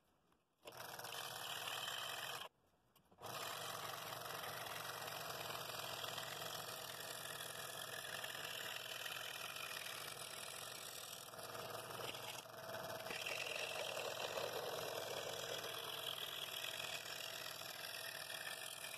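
Scroll saw running with a number 5 blade, cutting through the curved cherry wall of a bowl. It starts about a second in, stops briefly, then starts again and runs steadily.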